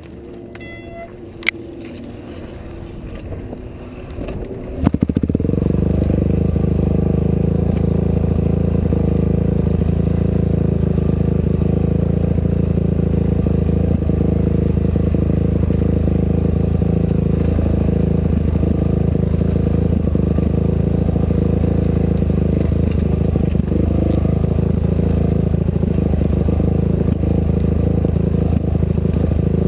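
Off-road race vehicle's engine. After a quieter start with a sharp click about a second and a half in, the sound builds and then jumps in abruptly about five seconds in. From there the engine runs loud and steady at an even pitch.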